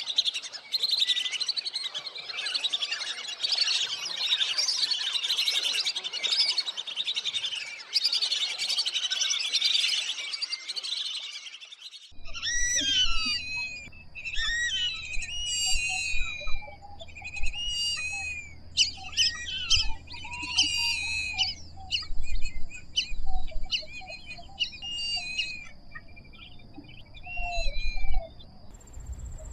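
A flock of lesser whistling ducks calling. For about twelve seconds there is a dense chorus of high whistled notes; then the recording changes to separate, sparser whistled calls that slide in pitch, over a low rumble and a faint steady high tone.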